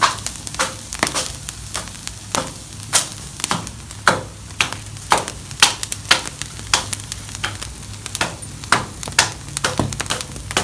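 Fir branches burning in a campfire, crackling with sharp, irregular pops about twice a second.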